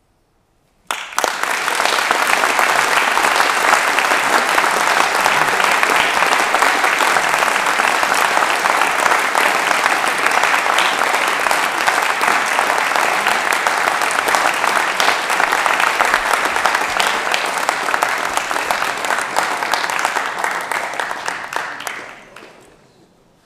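Audience applauding. It breaks out suddenly about a second in, holds steady, and dies away near the end.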